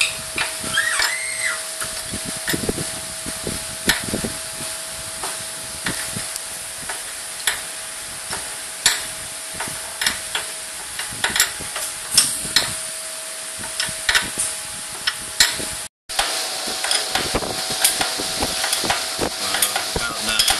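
Hand tools and bolts clicking and tapping on metal as a new rear shock absorber is fitted to a Johnny Pag Spyder cruiser: irregular sharp clicks every second or so over a steady hiss and a faint steady hum. The sound cuts out for an instant about sixteen seconds in.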